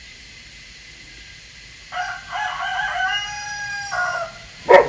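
A rooster crowing: one long pitched call lasting a little over two seconds. Near the end comes a short, loud dog bark.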